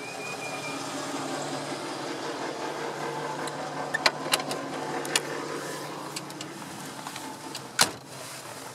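Door of a 1950 Oldsmobile 88: a few sharp clicks of the latch and handle about four to five seconds in, then the heavy steel door slamming shut near the end, over a steady low hum.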